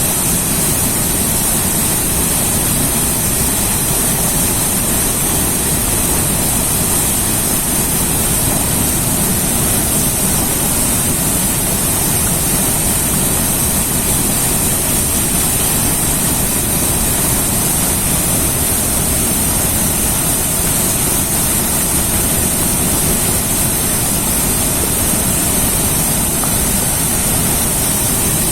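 A river rushing with a steady, loud rumble of water and a bright hiss of spray, unchanging throughout.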